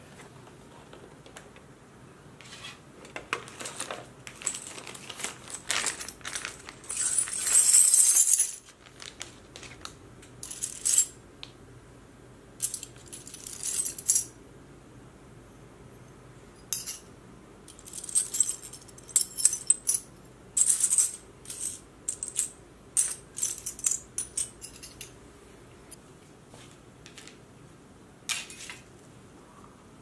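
Handling sounds: clicks and knocks of plastic storage boxes being opened, with a brief louder scraping rush about eight seconds in. After that come clusters of light clinks and rattles as metal pendant bezel settings are picked out of a pile and knock against each other.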